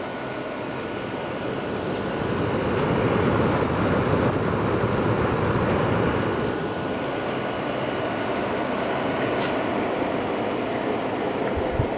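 Fedders 5000 BTU window air conditioner running, its fan blowing a steady rush of air with a faint high whine. It swells louder a few seconds in and then eases back a little.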